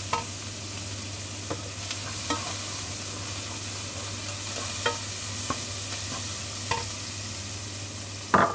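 Herbs, garlic and chilli sizzling in a pan while being stirred with a plastic spatula, with a few light knocks of the spatula against the pan. A louder knock comes near the end.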